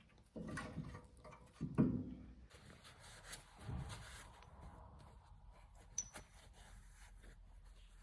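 Faint handling noises from the brake caliper slider pins being pulled out of the carrier: a few dull knocks and rubs, the loudest about two seconds in, and a light click near six seconds.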